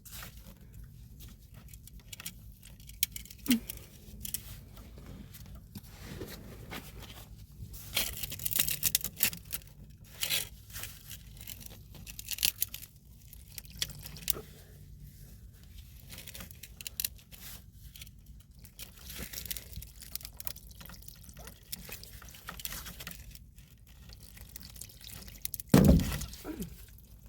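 Scattered clicks, scrapes and rustles of hands working on a clogged drain pipe and its fittings, with water dripping and trickling from the opened line.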